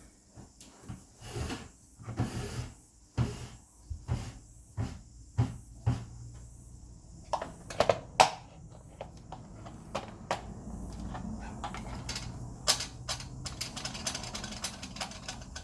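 Knocks, clicks and rattling of a projector's parts being handled and pried apart during disassembly: a run of separate sharp knocks at first, then denser clattering in the second half.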